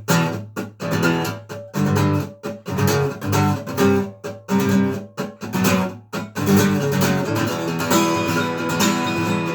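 Instrumental song intro: strummed guitar chords in a steady rhythm, turning into a denser, continuous sound about six seconds in.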